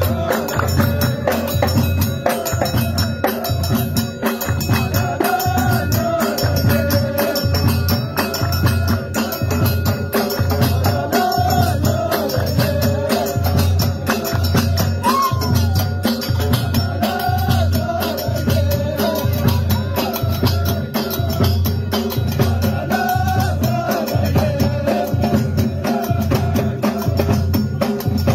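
Moroccan Amazigh ahwach music: a troupe beating frame drums and a large double-headed drum in a fast, steady rhythm with hand-clapping, while voices sing over it.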